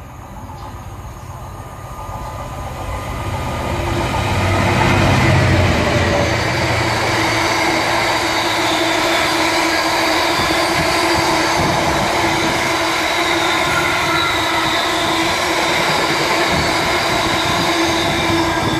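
Diesel-hauled freight train passing through a station. The locomotive's engine rumble builds and peaks about five seconds in, then the long rake of open box wagons runs by with loud, steady wheel-on-rail noise and a held whine from the wheels.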